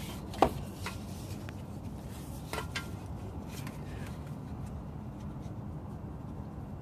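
A few short clicks and knocks, the loudest about half a second in, over a steady low hum.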